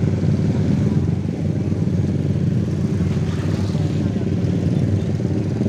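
Many motorcycle engines running together in a crowd, a steady low rumble.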